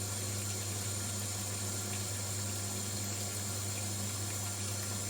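OSJ 5.2 kg compact top-loading washing machine running, a steady low hum with a wash of noise over it.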